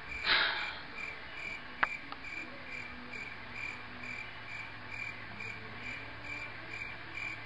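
Crickets chirping in a steady, even rhythm of about two and a half chirps a second. A brief breathy noise comes about a third of a second in, and a single sharp click just before two seconds.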